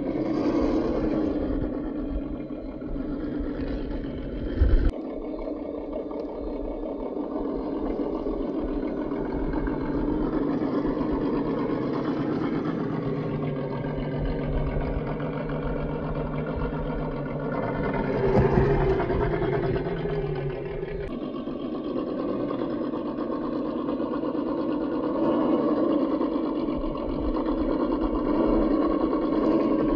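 A 1:10-scale RC crawler's electric motor and drivetrain whining steadily as it crawls over rocky ground, with one hard knock about five seconds in.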